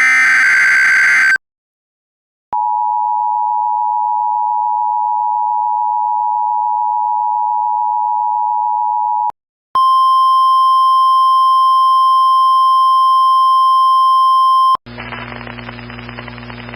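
The last burst of an EAS SAME digital header rasps for about a second and a half. After a pause comes the two-tone EAS attention signal, held steady for about seven seconds. After a short gap, a single NOAA Weather Radio 1050 Hz alert tone sounds for about five seconds, then cuts off into a low hum and static.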